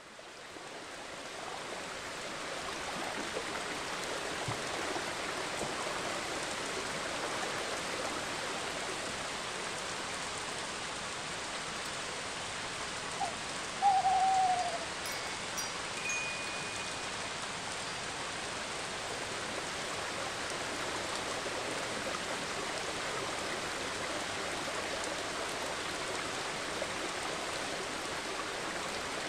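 Nature-sound track of steady rushing water noise, fading in at the start, with a single short owl hoot that dips slightly in pitch about halfway through.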